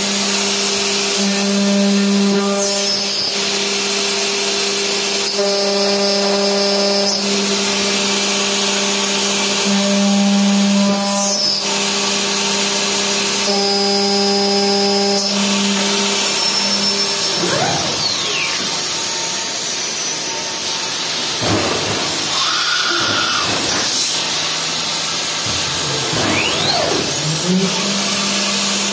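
CNC aluminium profile machining centre's spindle running with an end mill cutting into an aluminium profile: a steady machine whine over the hiss of the cut, the whine changing from section to section, with a few brief gliding tones in the second half.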